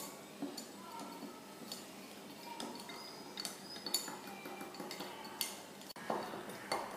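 Wooden chopstick stirring liquid in a glass bottle, tapping and clinking faintly against the glass in irregular small strikes, with a few louder knocks near the end.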